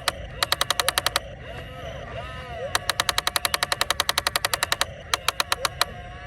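Rapid sharp strikes, about ten a second, coming in several bursts, the longest about two seconds, over a steady low rumble.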